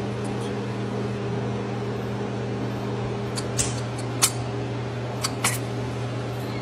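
Steady low mechanical hum, a few fixed tones held without change, with several short sharp clicks around the middle.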